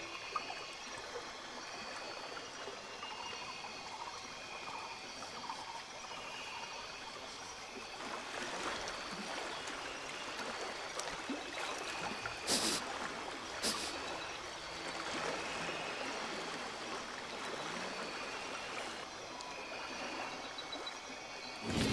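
Shallow river flowing over rocks: a steady trickling and babbling of water, with two short sharp clicks a little past halfway.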